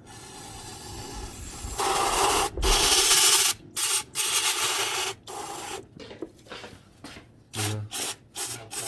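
Aerosol can of brake cleaner spraying onto a transmission gear: one long hiss that grows louder over the first few seconds, then a few separate bursts, then several short quick spurts near the end.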